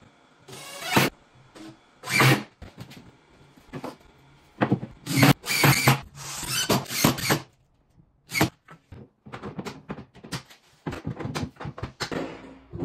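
Short bursts of a cordless drill-driver driving screws, with knocks and clatters of tools and cabinet panels in between. Each burst starts and stops abruptly, and there are several quick clicks and taps near the end.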